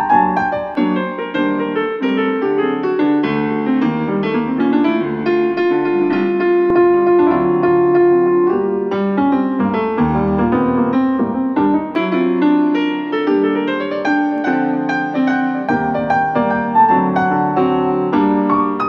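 Instrumental music led by piano, played back through a compact speaker and recorded through the air by a microphone.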